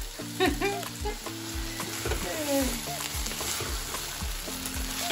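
Food sizzling as it fries in oil in a pan, stirred with a wooden spoon. Afrobeat music with a steady beat plays underneath.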